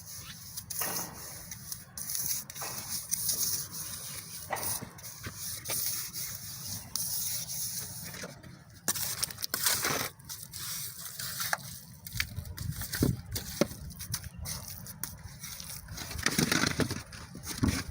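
Bricklaying with a trowel: irregular scrapes and short knocks of mortar being spread and bricks being set.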